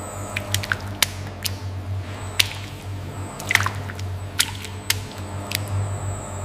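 Steady low hum of factory machinery, with irregular sharp clicks and drip-like ticks scattered over it.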